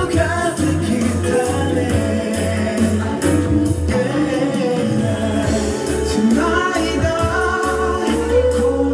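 Male pop vocalists singing live into handheld microphones over backing music with a steady bass line, heard through the PA.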